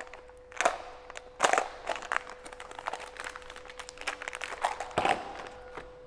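Stiff clear plastic packaging being handled and opened: irregular crinkles and clicks, with sharper cracks about half a second in, at around a second and a half and two seconds, and again near five seconds.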